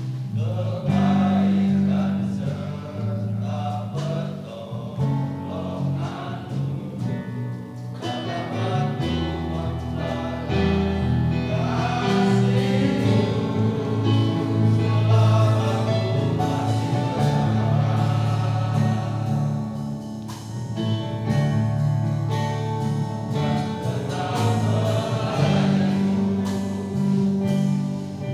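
Men's choir singing a gospel hymn in Indonesian, in sustained held notes with deep bass voices.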